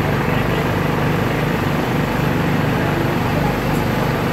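A steady, low engine drone running on without a break.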